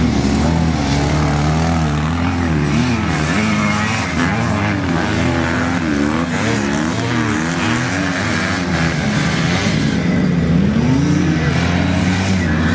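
Engines of vintage motocross sidecar outfits and motorcycles racing, several running at once, their pitch rising and falling again and again as the riders open and close the throttle.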